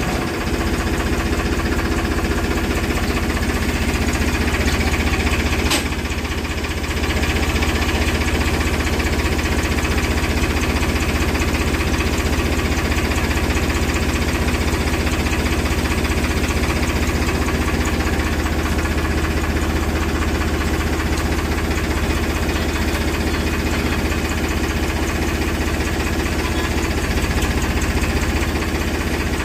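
An engine idling steadily, with a single short click about six seconds in.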